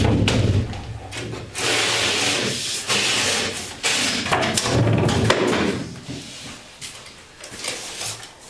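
Sheets of gypsum drywall scraping and rubbing against each other as they are handled, in about three long, noisy strokes that die away after about six seconds.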